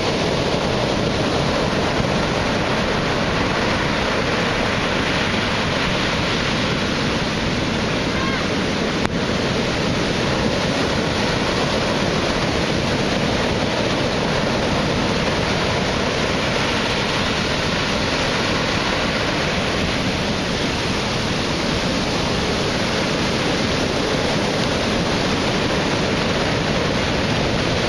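Heavy hurricane-driven surf, waves of 7 to 10 feet breaking around and under a pier's pilings: a steady, unbroken wash of surf noise, with wind on the microphone.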